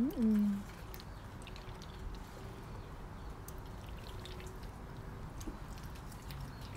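Light water splashing and dripping in a plastic wading pool as waterfowl dabble and drink in it, with scattered small drips. A brief rising-then-falling call is heard right at the start.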